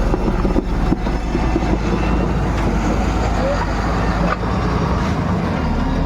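Heavy earth-moving machine's engine running steadily, a dense low rumble with no clear rise or fall.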